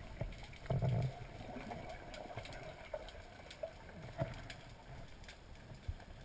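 Muffled underwater sound of a spearfisher swimming down: a short low whoosh of water about a second in, then faint water hiss with scattered small clicks.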